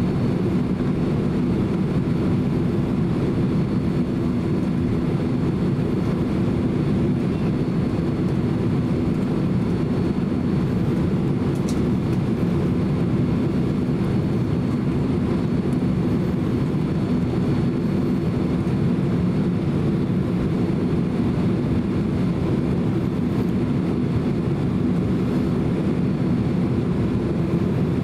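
Cabin noise of a Boeing 767-300 taxiing, heard from inside the cabin: a steady low rumble of the jet engines at taxi power.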